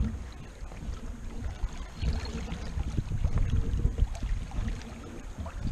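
Wind buffeting the microphone in uneven gusts over the rush of sea water past the stern of a sailing yacht under way.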